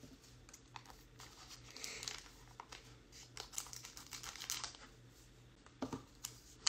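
Foil wrapper of a 2022 Topps Gypsy Queen trading-card pack crinkling and rustling as it is handled and cut open with scissors, with small clicks and a few sharper ones near the end.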